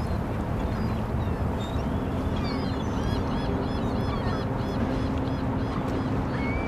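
Harbour-side outdoor ambience: a steady low rumble with a held low drone, and birds chirping over it, including a run of evenly repeated chirps in the middle.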